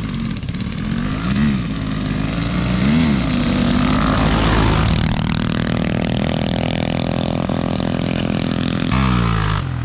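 Small minibike engine revving twice, then running at a steady high pitch at full speed with wind rushing over the microphone; near the end the engine note drops sharply as the rider backs off.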